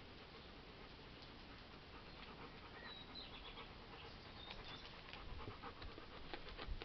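A large long-haired dog panting close to the microphone, getting louder as it comes near, with a few low thumps near the end.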